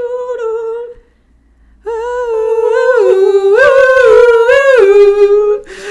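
A high voice humming a wordless tune: one held note, a break of about a second, then a louder run of held notes stepping up and down.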